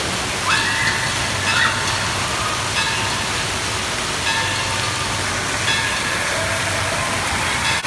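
Steady rush of water pouring from a water-park play structure and splashing into a shallow pool, with a few short high-pitched children's voices rising over it.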